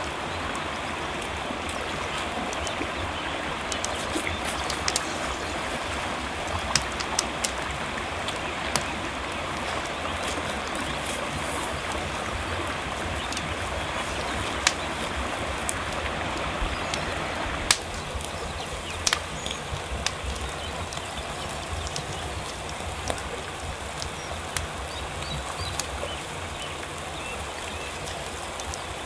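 Steady rushing of river water, with sharp crackles and pops from salmon grilling over wood-fire coals. The rushing drops a little about two-thirds of the way through.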